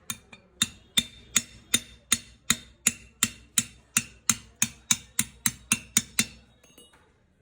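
A hammer striking metal in a quick, steady series of about twenty blows, roughly three a second, each with a short ring, as a broken pipe is driven out of a jet pump motor's body. The blows come a little faster near the end and stop about six seconds in.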